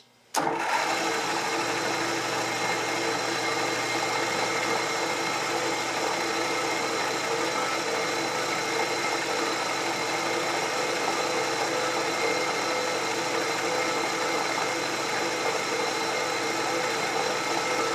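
Milling machine spindle switched on about half a second in and then running steadily, with a constant whine and hum from its motor and drive.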